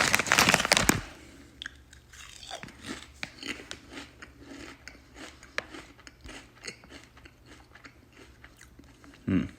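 Crisp packet rustling loudly for about a second, then the crunch and chewing of a barbecue-honey potato chip, in many small irregular bites.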